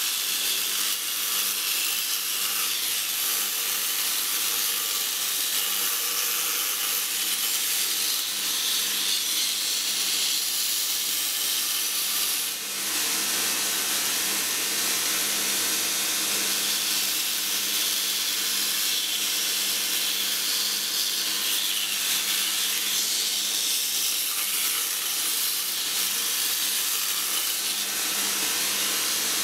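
Belt grinder running, its abrasive belt grinding a forged steel hook held in tongs against the platen: a steady hiss that dips briefly about twelve seconds in.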